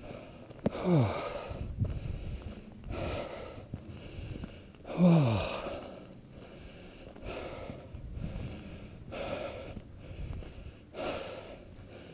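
A hiker breathing hard while climbing a steep mountain slope, with a breath every second or two. Twice, about a second in and again about five seconds in, an exhale is voiced as a sigh that falls in pitch; the second is the louder.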